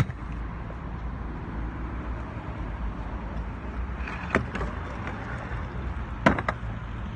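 Steady outdoor street noise with the clatter of a stunt scooter: a sharp knock about four seconds in as it meets a stone ledge, then two louder clacks about six seconds in as the deck and wheels land on a wooden bench.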